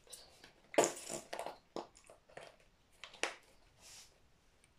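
A series of short rustles and clicks as painting materials are handled, the loudest about a second in and several smaller ones after it.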